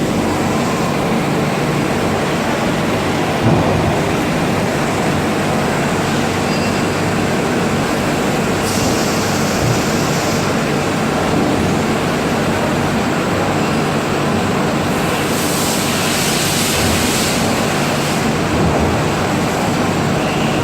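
A grinding machine running steadily, with two stretches of added high hiss, about nine seconds in and again about fifteen seconds in.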